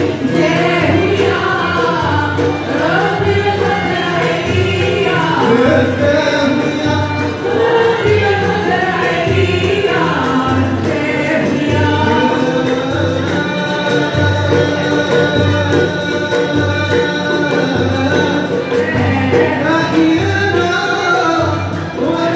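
Live Moroccan madih (sung religious praise) with a lead singer and other voices joining, accompanied by violins and ouds over a steady low beat.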